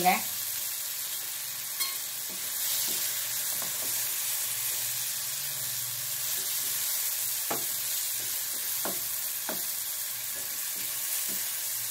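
Goat brain and onions sizzling steadily in hot oil in a pan while a wooden spatula stirs them. A few light knocks of the spatula against the pan come in the second half.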